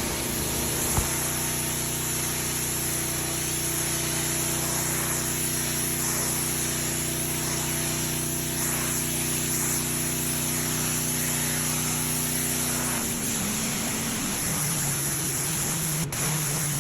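Gas-powered Simpson pressure washer running steadily, its small engine's even note under the hiss of the wand's spray on concrete. About 13 seconds in, the engine note changes.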